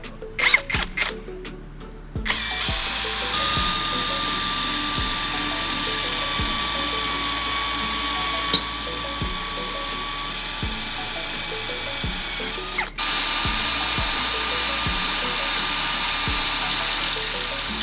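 A few sharp metallic clicks, then an electric power tool starts about two seconds in and runs steadily with a high whine, cutting out for a moment near the end before running again. Background music with a steady beat plays underneath.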